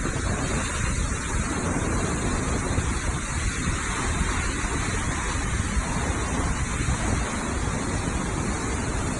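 Hurricane winds blowing hard and buffeting the microphone, with heavy rain and churning floodwater, in a steady rush of noise with gusty low rumbling.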